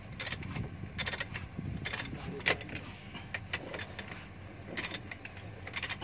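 Hand ratchet wrench clicking in short runs, roughly once a second, with metallic clinks, as the track roller bolts of a Doosan excavator's undercarriage are turned. A low steady hum runs underneath.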